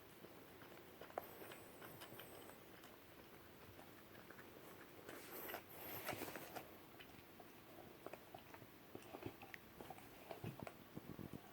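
German Shepherd puppy licking and lapping whipped cream from a cup: faint wet licks and small knocks, louder for a moment about five to six seconds in.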